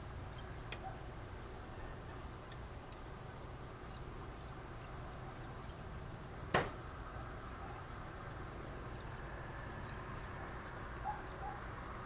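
Quiet outdoor ambience: a steady low rumble with a faint high whine, a few small clicks, and one sharp click about six and a half seconds in. A couple of faint short chirps come near the end.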